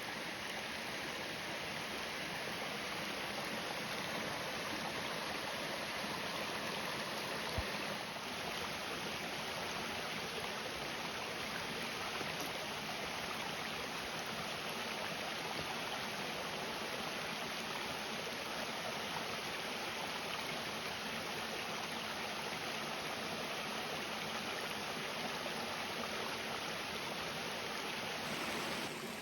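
Steady rush of flowing stream water, an even, unbroken noise.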